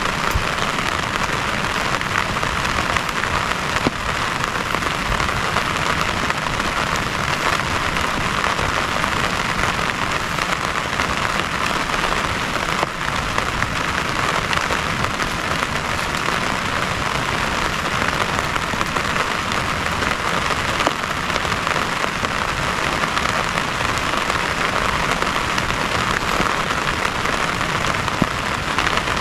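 Heavy rain falling steadily, with a few sharp drop hits standing out now and then.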